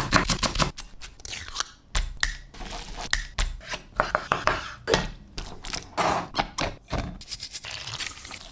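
Kitchen prep sounds: irregular knocks and short scrapes of utensils against a cutting board or bowl.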